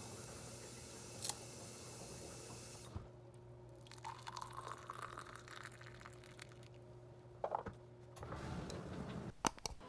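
Hot water poured from a kettle into a ceramic mug over a tea bag, the pitch of the stream rising as the mug fills. A few sharp clicks before the pour, and a couple of knocks near the end.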